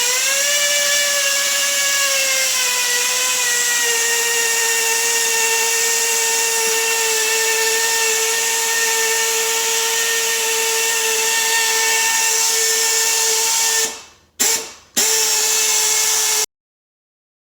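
Air-powered drill spinning a mixer paddle through cookie dough with a steady whine. About 14 seconds in the trigger is let off, it spins up twice more briefly, then stops suddenly.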